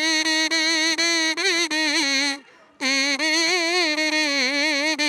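Background music: a single melody line of long held, ornamented notes that waver and bend in pitch, broken by a short pause about two and a half seconds in.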